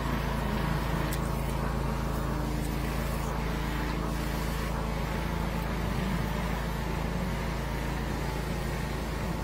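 Engine of a high-pressure sewer jetting unit running steadily, a constant low drone with no change in speed.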